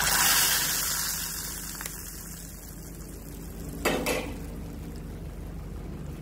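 Hot ghee with fried nuts poured into a bowl of milky vermicelli, sizzling loudly at first and fading away over a few seconds. A second short burst of sizzle comes about four seconds in.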